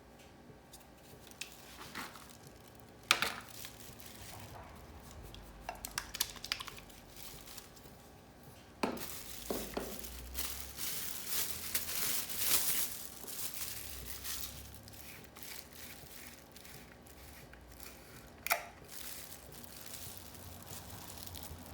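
Irregular handling noises: scattered sharp knocks and clicks, with a busy stretch of scraping and crinkling about halfway through.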